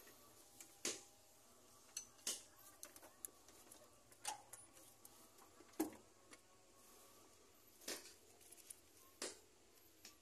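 Scattered sharp metallic clinks and clicks, about one a second at irregular intervals: a spanner and bolts knocking against metal parts while working at the gearbox in a car's engine bay.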